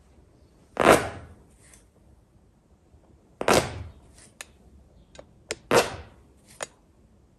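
Edge of a small palette knife scratching lines into wet oil paint on a stretched canvas: three short scratches, with a few light ticks of the blade against the canvas between them.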